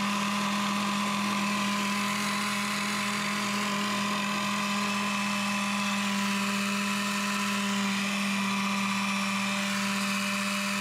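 Food & Wine immersion hand blender's motor running at a steady pitch on its food-processor bowl, the emulsifying blade whipping heavy cream into whipped cream.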